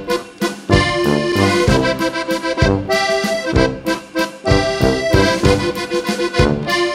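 Instrumental background music: held chords over a regular beat.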